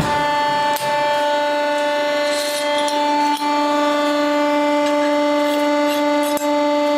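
Friction welding machine running with a steady, even-pitched whine, broken by three small clicks.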